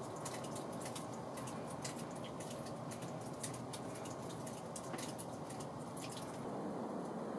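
Water dripping irregularly from the rock at the mouth of an old pyrite mine, several small drops a second, over a steady low background rush.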